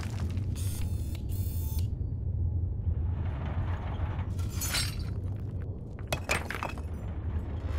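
Robot excavator's machinery rumbling low and steady while its steel bucket digs into a pile of rocks, stones clattering and grinding against the metal around four and again around six seconds in. Two short hisses come about a second in.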